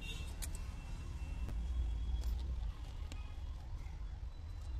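Steady low background rumble of a busy street, with a few short sharp clicks scattered through it.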